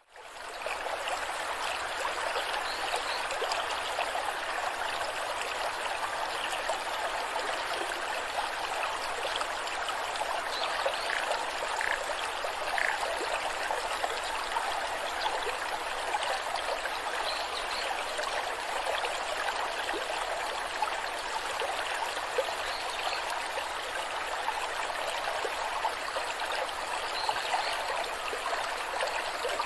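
A waterfall's cascading water makes a steady, even rush.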